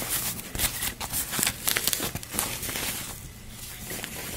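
Plastic wrapping rustling and crinkling as it is pulled off a model locomotive, in irregular crackles that thin out about three seconds in.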